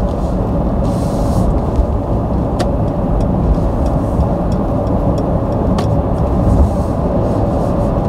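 Steady road and wind noise inside the cabin of a moving Mercedes EQC 400 electric SUV, with two short sharp clicks, one about a third of the way in and one about three quarters of the way in.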